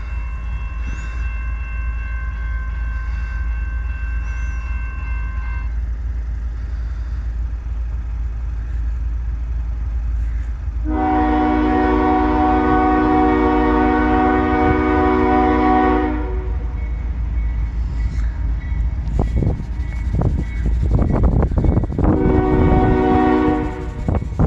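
Horn of an approaching CSX freight locomotive, sounding one long blast of about five seconds roughly eleven seconds in, then a shorter blast of a second and a half near the end.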